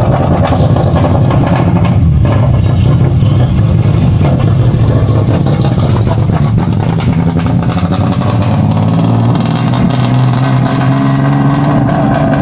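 A large SUV's engine revving hard and continuously, its pitch rising and falling again and again.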